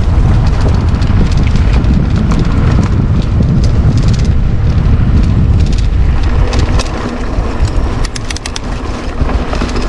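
Mountain bike riding a rough dirt trail: wind rushing over the microphone and the tyres rumbling on the ground, with scattered clicks and rattles from the bike. The noise eases off a little near the end.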